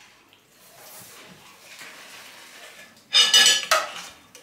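Kitchenware handled, then a loud ringing clatter of dishes about three seconds in, lasting about half a second.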